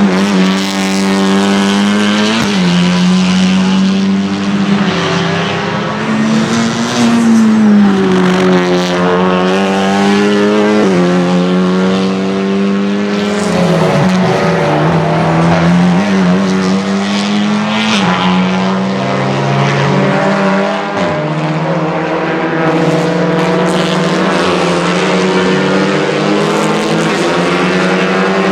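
Honda Civic Type R TCR race car's 2-litre turbocharged four-cylinder engine running hard at high revs. Its pitch climbs and drops sharply about five times at quick sequential gear changes.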